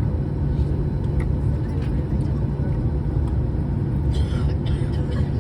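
Steady low rumble of a Boeing 737-800 airliner and its CFM56-7B jet engines, with a faint steady hum above it.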